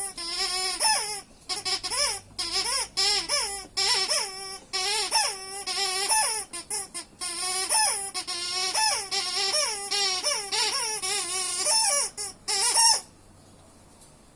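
A bored dog whining, a long run of high, wavering whines with short breaks, stopping suddenly about thirteen seconds in.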